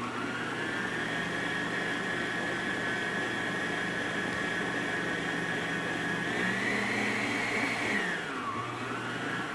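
Arno Planetária Deluxe stand mixer running with its wire whisk, a motor whine that spins up at the start and holds steady while briefly beating a batter of egg yolks, honey and oil together. The pitch steps up a little after six seconds in, dips about eight seconds in, then rises again near the end.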